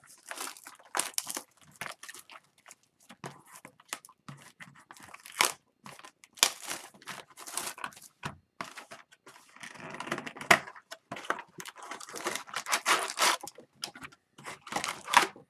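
A sealed Upper Deck Series 2 retail hockey card box being unwrapped and opened by hand: irregular tearing and crinkling of the wrapping, with cardboard scraping and handling of the packs near the end.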